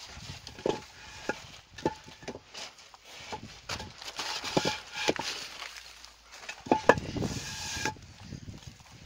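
Irregular sharp knocks and clinks from masonry work with silicate blocks, some ringing briefly, over a scraping hiss.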